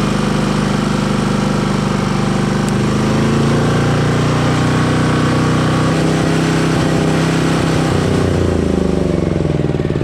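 Small portable generator engine running steadily. Near the end its speed starts to drop and it begins to stumble, the sign of the carburetor being run dry of fuel before storage.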